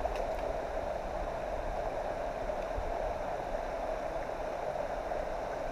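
Small mountain stream flowing over rocks: a steady rush of running water.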